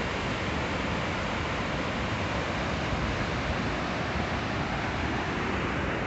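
Steady rush of water pouring down a dam's stepped concrete spillway, a flight of small weirs one below the other.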